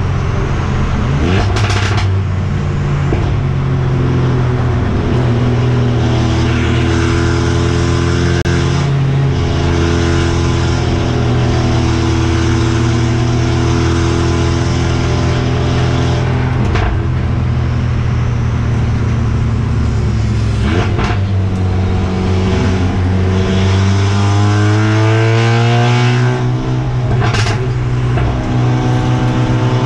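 Onboard sound of the Mercedes-AMG CLA45 race car's 2.0-litre turbocharged four-cylinder engine under racing load, its pitch repeatedly climbing and dropping as the car accelerates, shifts and brakes. Several short, sharp noises cut through the engine note.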